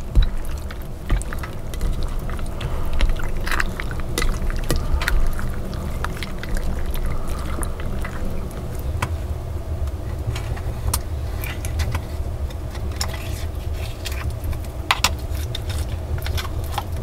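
Hands rinsing a raw heart in a metal bowl of water: water sloshing and dripping with scattered small splashes and clicks, over a steady low rumble.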